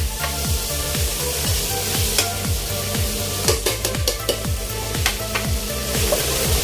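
Onions, ginger and tomatoes sizzling in oil in a large pot as they are sautéed, with a spatula and metal ladle scraping and knocking against the pot in a series of sharp clicks while they are stirred.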